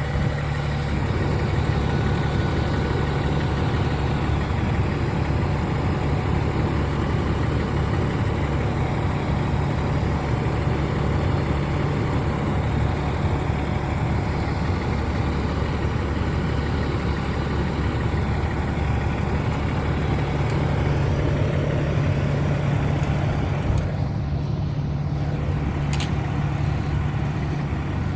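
Large vehicle engine idling, a steady low drone.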